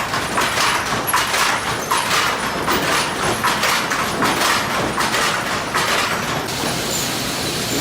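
Sawmill board edger line running: a dense mechanical clatter and hiss with knocks about twice a second, changing to a steadier hiss about six and a half seconds in.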